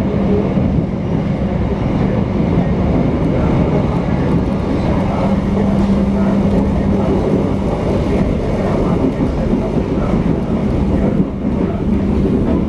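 Passenger train running along the track, heard from inside the coach: a steady rolling rumble with a low hum.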